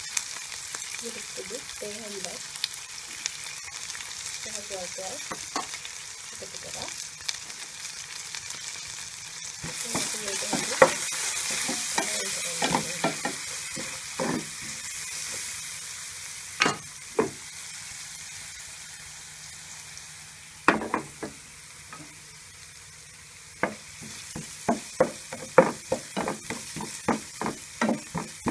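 Onions, tomatoes, green chillies and spices frying and sizzling in oil in a pan, stirred with a spoon that taps and scrapes against the pan. The sizzle grows louder for a few seconds around the middle, and near the end the spoon taps come quickly, about two a second.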